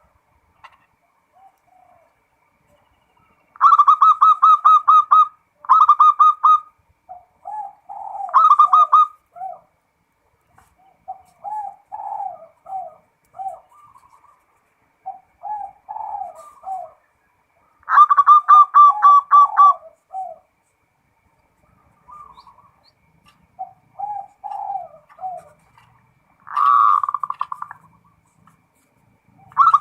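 Zebra dove (perkutut) cooing in repeated bouts: fast runs of short, clipped high notes alternating with lower, slower coo phrases, with short pauses between bouts.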